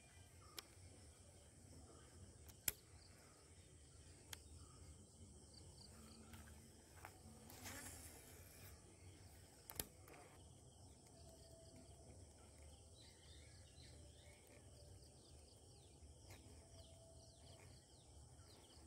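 Near silence: faint outdoor ambience with a low steady background, a few sharp clicks, and faint repeated high chirps in the second half.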